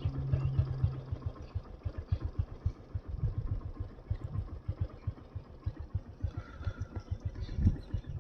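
Motorcycle engine running on the move, with a dense, irregular low rumble; a steady low hum in the first second and a half.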